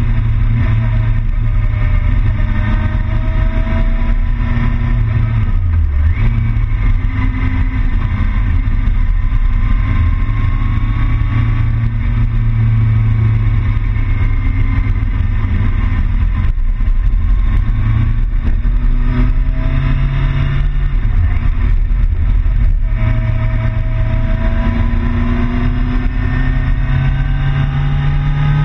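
Motorcycle engine heard from an onboard camera while riding, its pitch rising and falling over and over as it accelerates and the rider shifts gear, over a steady heavy rumble.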